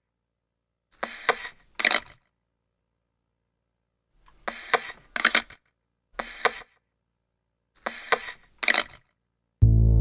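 Short bursts of sharp mechanical clicking, mostly in pairs, with dead silence between them. Music with low, sustained synthesizer chords starts just before the end.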